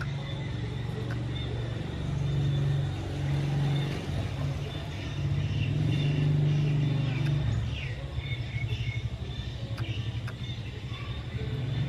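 A motor engine running with a low, steady rumble; about eight seconds in it turns to a rapid flutter.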